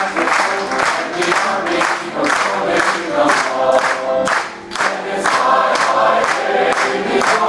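Large mixed choir of male and female voices singing a medley of armed forces service songs.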